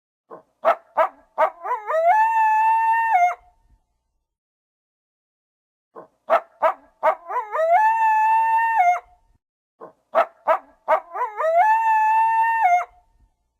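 Coyote yip-howl: a quick run of short yips climbing in pitch, then one long steady howl that drops off at the end. The same call is heard three times, with silence in between.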